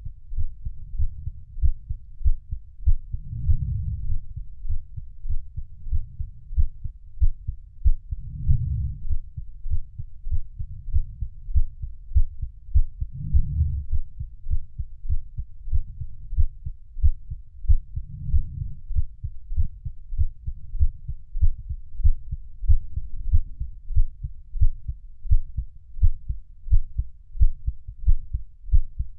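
Heartbeat sound: steady, even, low thumps. A soft, low swell rises and fades about every five seconds.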